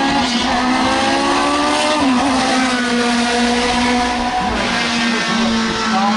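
Formula racing car engine accelerating hard, its revs climbing and dropping at upshifts about two seconds in and again around the middle.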